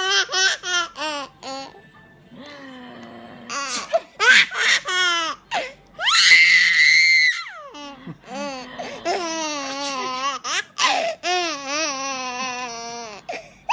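Baby belly-laughing in repeated bursts of high-pitched laughter, with a longer, louder outburst about halfway through.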